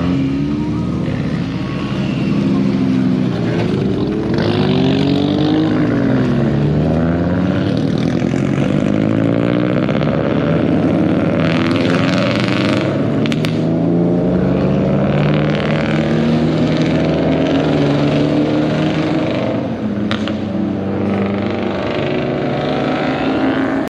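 Several car engines revving and accelerating, one after another, as cars pull away through an intersection, the pitch rising and falling with each gear and throttle change. Tyres hiss on the wet road underneath.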